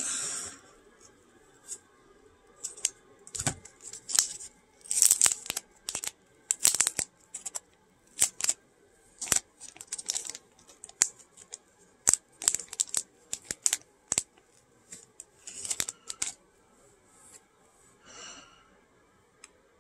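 Blue painter's tape being peeled off a rigid plastic card holder and a trading card worked out of it: an irregular run of sharp crackles, clicks and short tearing sounds, busiest around five and ten seconds in.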